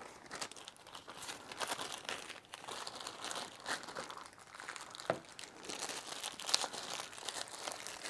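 Hands rubbing and flexing a leather work glove, working Sno-Seal wax into the leather: irregular crinkling and rustling with scattered sharp ticks.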